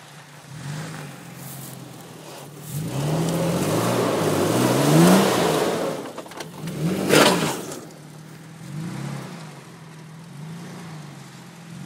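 Toyota FJ Cruiser's 4.0-litre V6 off-roading, its revs rising and falling again and again as the driver works the throttle. About three seconds in a louder rushing stretch of engine and tyre noise builds for a few seconds, and a sharp loud burst comes at about seven seconds.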